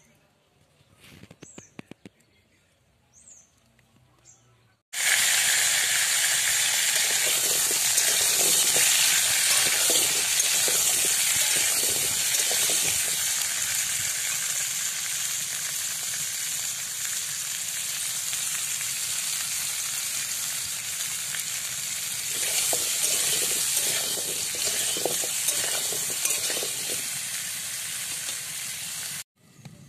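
Potato chunks frying in hot oil in a dark iron kadai: a loud, steady sizzle that starts suddenly about five seconds in and cuts off abruptly just before the end.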